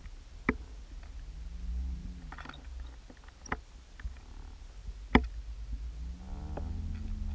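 Muffled underwater sound picked up through a waterproof camera housing: a constant low rumble of moving water, three sharp clicks or knocks, the last the loudest, and twice a low hum that rises and then falls in pitch.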